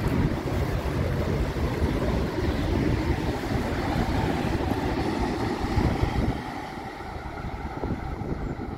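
ICE L train running past at speed: a steady rush of wheels on rails and air rushing around the coaches, which drops off about six seconds in as the last car passes and the train draws away.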